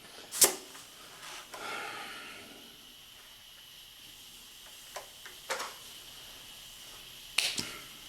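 Tippmann Aerostitch pneumatic leather sewing machine being handled after a stitch run: a few sharp clicks and knocks, one near the start, two about five seconds in and a pair near the end, over a faint steady hiss of compressed air.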